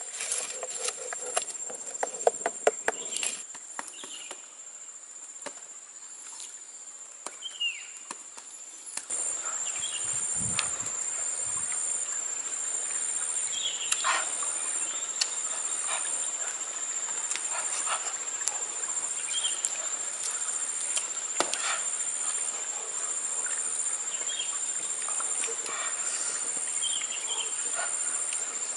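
Small wood fire crackling, with clicks and knocks as a stick pokes the embers. About nine seconds in, a steady high insect chorus with a rhythmic pulsing buzz takes over, with occasional short bird chirps.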